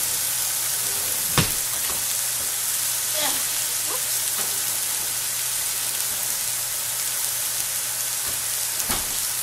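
Sliced bitter melon and egg sizzling in a frying pan on a gas stove, a steady hiss. Two knocks come about a second and a half in and near the end.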